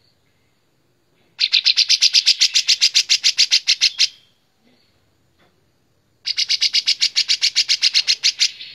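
Caged kapas tembak bulbul singing loudly: two rapid chattering phrases of about ten evenly repeated notes a second, each lasting about two and a half seconds, with a short pause between them.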